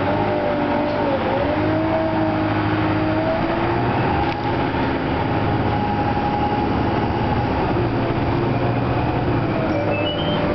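Interior ride noise of a 1997 Orion V diesel city bus under way: the engine drones steadily over road noise, with a whine that rises in pitch about a second in and then holds steady as the bus gets up to speed.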